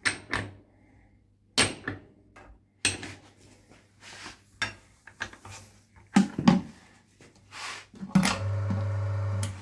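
Metal disc weights clinking and knocking as they are handled on the loading lever of an oil friction test machine, over the faint steady hum of its electric motor. Near the end the motor hum turns louder for about a second, then cuts off.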